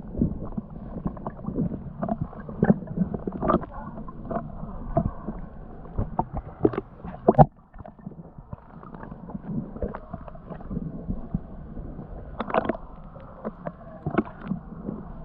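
Muffled water sloshing and splashing as a snorkeler moves through the river, with many irregular sharp clicks and knocks throughout.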